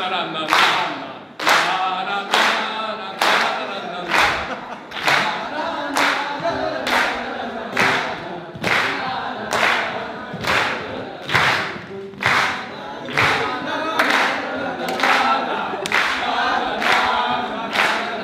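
A group singing a song together over a sharp, steady beat that falls a little faster than once a second.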